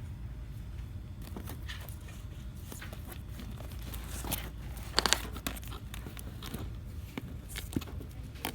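Steady low hum of a store interior with scattered clicks and crinkles of merchandise and packaging being handled, and a brief cluster of louder clacks about five seconds in.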